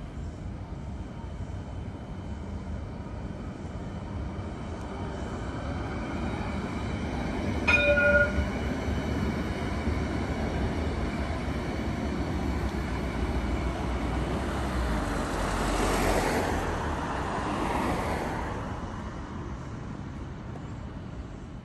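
A light rail train approaches and passes by. Its running noise builds to a peak about two-thirds of the way through and fades near the end. A short horn blast about eight seconds in is the loudest sound.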